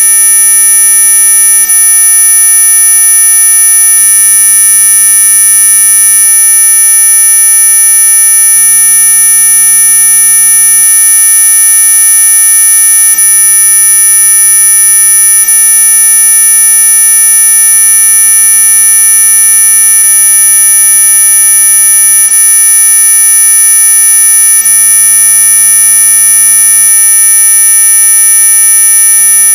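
Synthesized anti-mosquito repellent tone: a loud, unbroken electronic whine of several steady tones at once, the loudest of them very high-pitched, near the top of hearing.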